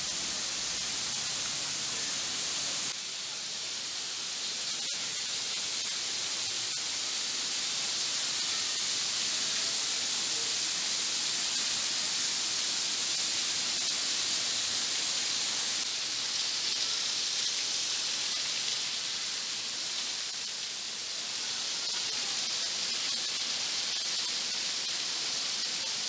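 Steady rushing hiss of a curtain of water pouring off a rock overhang, heard from just behind the falling water.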